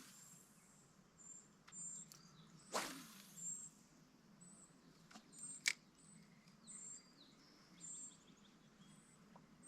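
Faint, high, thin bird chirps, often doubled, repeating about once a second. Two short whooshes, near the start and about three seconds in, and one sharp click a little before six seconds.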